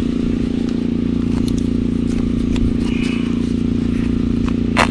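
An engine running steadily under gloved hands scraping and scooping dry sandy soil, with a sharp scrape or click just before the end.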